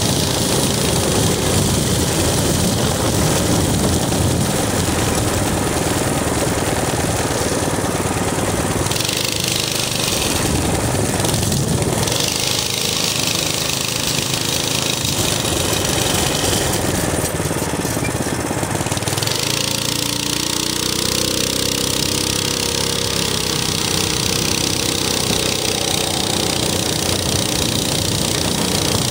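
Minibike's small engine running steadily under way. Its pitch rises and falls a little in the second half, over a high hiss that comes and goes.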